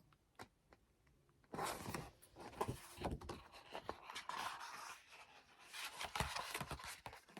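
Magazine pages being turned and handled: soft paper rustling and rubbing with small clicks, starting about a second and a half in.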